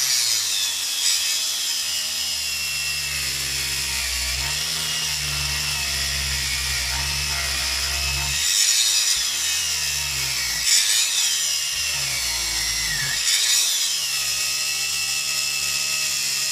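DeWalt angle grinder grinding a steel bar under very heavy load, with the disc hissing on the steel. Its motor whine sags in pitch as it bogs down and climbs back briefly about three times when the pressure eases, while it draws over 20 amps.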